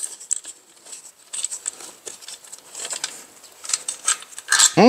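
Hand tools working on bolts at the engine's alternator bracket: scattered light metallic clicks and clinks.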